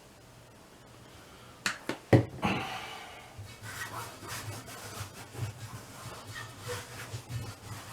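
Two sharp knocks, then irregular rubbing and scrubbing as soapy lubricant is worked onto a tire bead by hand.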